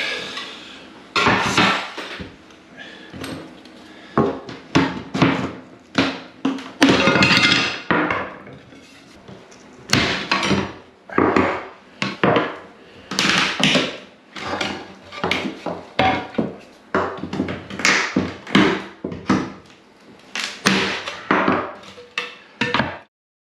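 Claw hammer and screwdriver knocking and prying ceramic wall tiles off the board above a shower tray: irregular sharp knocks with scraping and clattering tile pieces. The sound cuts off suddenly near the end.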